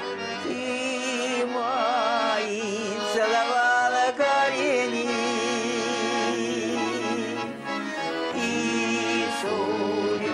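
A song: a voice singing with vibrato over sustained instrumental backing.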